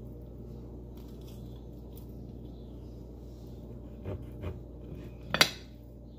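Faint handling sounds as softened cardboard and aluminium foil are peeled off a pressure-cooked carton of condensed milk: two soft knocks about four seconds in, then a sharp crack about a second later, the loudest sound. A steady low hum runs underneath.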